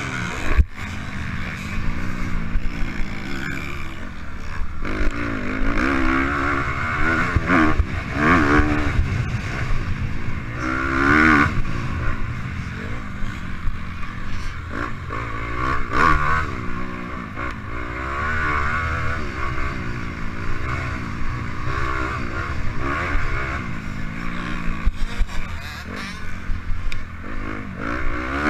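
Youth motocross dirt bike engine heard from on the bike, revving up and falling back again and again as the rider accelerates and shifts along the track. Sharp knocks from bumps come through now and then over a constant low rumble.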